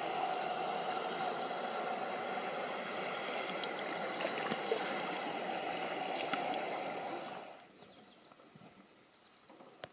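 Steady rush of a shallow river running over rocks and riffles, with a faint steady hum beneath it; it fades out about three-quarters of the way through, leaving near quiet.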